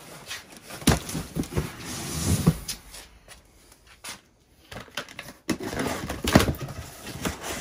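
Cardboard boxes being handled and rummaged through, with scattered knocks and scrapes of cardboard. The handling goes quiet for a couple of seconds in the middle, then picks up again.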